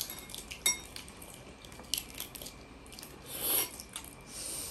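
Fingers peeling the cracked shell off boiled balut duck eggs: a few small shell clicks, then a longer rasping rub that swells and fades a little past halfway.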